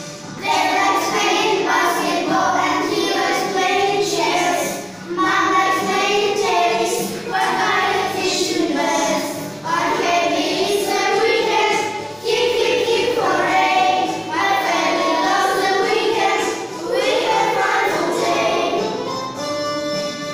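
Background music: a song sung by a choir of voices, children's among them, in short phrases over instrumental backing.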